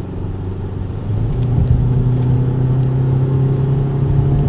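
Road vehicle engine drone and road noise heard from inside a moving car; the engine note rises in pitch and gets louder about a second in, as a vehicle speeds up.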